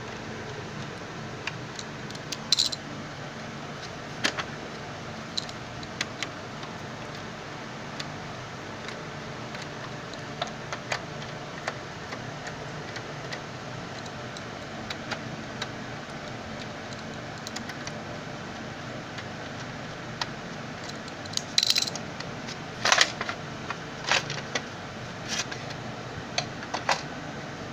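Scattered small metallic clicks and clinks as a screwdriver undoes the cover screws of a Xerox WorkCentre 5755/5855 fuser module and the parts are handled, with a louder run of clinks near the end. A steady hum sits underneath.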